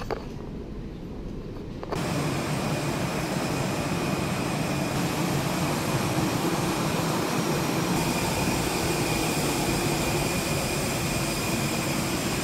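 Quiet room tone for about two seconds, then a sudden cut to steady jet airliner noise: a dense roar with a faint high whine running on without change.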